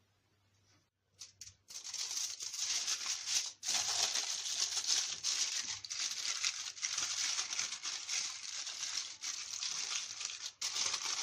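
Aluminium foil crinkling and rustling as it is folded and crimped shut around seasoned shrimp to seal in the juices. It starts about a second in and goes on with two short pauses.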